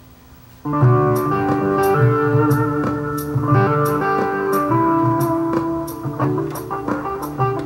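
Music with a steady beat played through the Panasonic SA-CH11 bookshelf stereo's original speakers, fed from its auxiliary input. It starts under a second in.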